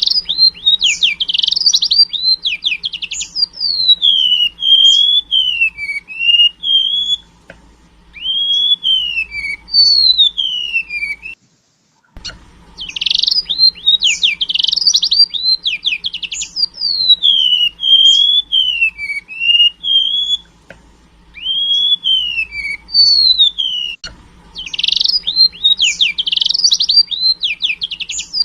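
Golden-bellied gerygone (remetuk laut) singing a canary-style song: a quick burst of rapid trilled notes, then sweeping whistled notes that slide down and up. The same phrase sequence repeats about every twelve seconds.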